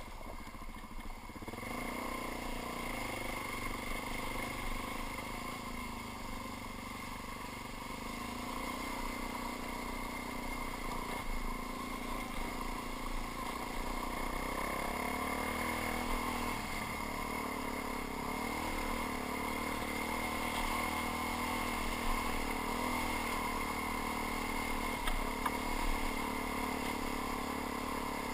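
Suzuki DR-Z400's single-cylinder four-stroke engine running as the dirt bike is ridden along a trail, its pitch rising and falling with the throttle.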